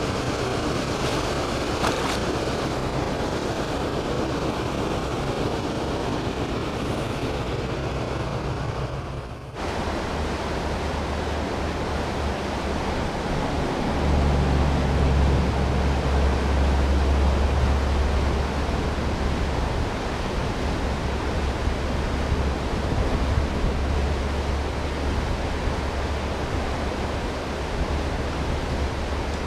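Steady rushing noise of churning canal water mixed with wind on the microphone. The sound cuts off abruptly about nine seconds in and resumes, then a deep rumble swells for several seconds before settling back to the steady rush.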